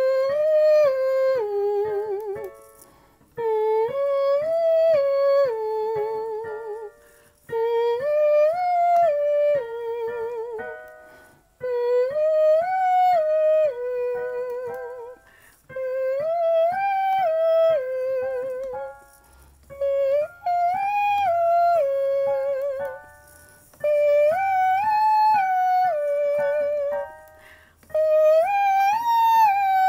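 A woman singing a vocal warm-up exercise on an open vowel with a yawn-position throat. It is a short phrase that climbs a few notes, holds, comes back down and ends on a wavering note. The phrase is repeated about eight times, each a step higher. It is a warm-up for singing while ill.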